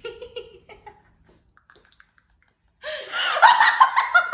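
A woman laughing: soft chuckles at first, a short near-silent pause, then loud, open-mouthed laughter from about three seconds in.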